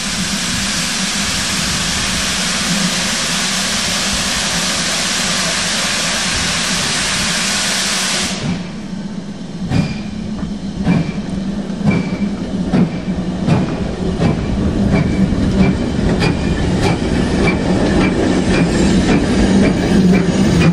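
GWR Grange-class steam locomotive 6880 Betton Grange: a loud, steady hiss of escaping steam that cuts off suddenly about eight seconds in. After that come clanks and clicks of the wheels and motion as the engine moves slowly past, growing louder toward the end.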